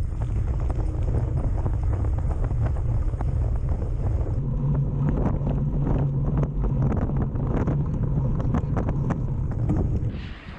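Wind buffeting the microphone of a bike-mounted action camera as a mountain bike rides fast on asphalt, with steady tyre rumble and scattered clicks and rattles from the bike. A low steady hum comes in about four seconds in.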